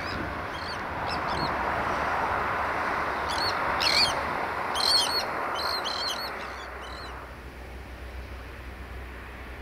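Steady rush of wind noise, with a string of short, sharp bird calls over it, loudest about four and five seconds in. The rushing dies down about seven seconds in, leaving a low steady hum.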